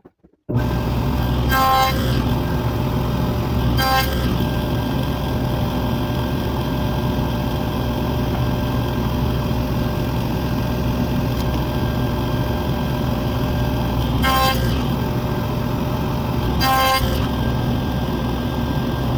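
A woodworking power tool running steadily while end dados are cut in wood panels: four brief passes, each adding a short, sharper ringing tone over the motor.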